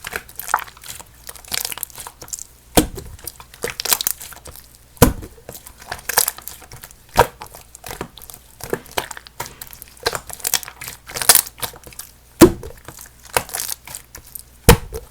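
Clear slime mixed with instant snow powder being squeezed and stretched by hand, giving a continuous irregular crackle with several louder sharp pops spread through.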